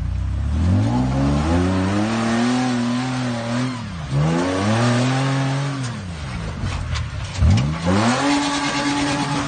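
Off-road 4x4's engine revved hard three times, each time climbing in pitch, holding high, then dropping away, the last rev held high. A few sharp knocks sound just before the last rev.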